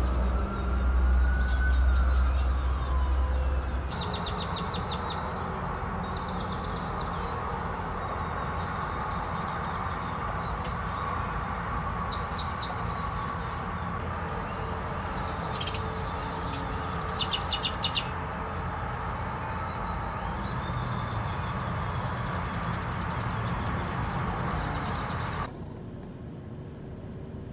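Small birds chirping in short scattered bursts over a steady background rush, with a heavy low rumble through the first four seconds. The loudest chirping comes about two thirds of the way in.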